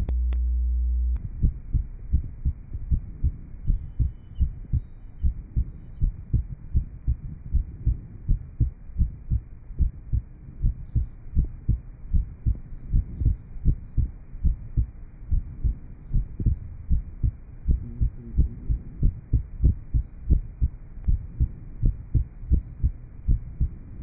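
Heart sounds from a patient after an operation for an atrial septal defect, picked up by a chest microphone: a regular heartbeat with low thumps repeating evenly. It starts after about a second of steady low hum.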